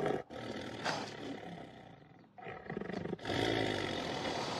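Big cat roaring in short bursts, then a longer, louder roar beginning about three seconds in.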